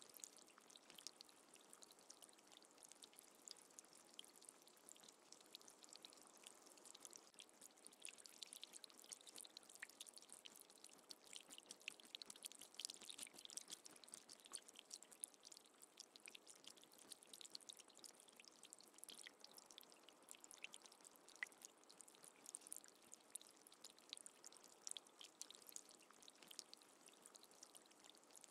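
Faint rustling and many light ticks of fresh herbs and leaves being handled and dropped into a plastic basin onto a raw fish, a soft, near-silent crackle.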